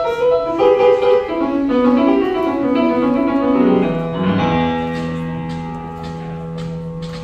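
Piano-led show music: a quick run of notes, then a chord held for the last three seconds.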